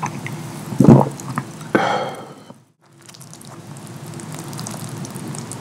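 A man gulping a drink from a glass mug, close to the microphone: one loud swallow about a second in, followed by a breathy sound. The sound then cuts out briefly and gives way to a faint steady hiss with light crackles.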